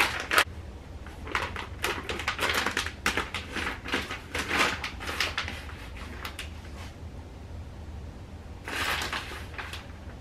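Kitchen handling at the stove: a quick run of short clicks and rustles for several seconds as a food packet and the skillet of ground meat are handled, then a louder rustle about nine seconds in.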